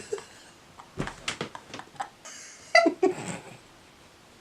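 A woman's short, high, pained squeal and whimper as a Velcro curler is tugged out of her tangled hair, with crackling clicks from the hair and Velcro before the cry.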